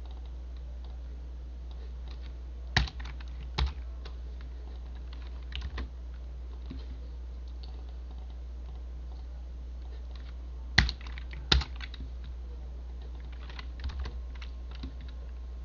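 Scattered clicks of a computer keyboard and mouse, with two louder pairs of clicks about a second apart, over a steady low electrical hum.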